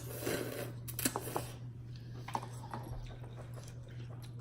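Small clicks, taps and rustles of eating at a table, bunched in the first second and a half and sparser after, over a steady low hum.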